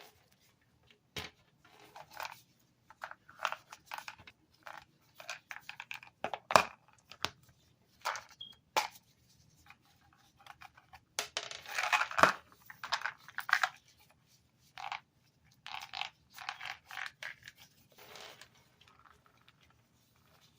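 Packaging being handled and torn open: irregular crinkling, tearing and sharp clicks, in clusters with short gaps. The loudest bursts come about a third of the way in and again just past halfway.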